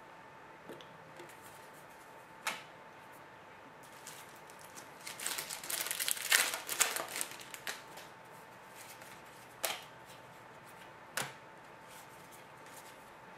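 Trading cards being handled at a box break: a few sharp clicks, and a stretch of crisp crackling and rustling in the middle as a foil card pack is torn open and the cards are sorted through. A faint steady hum runs underneath.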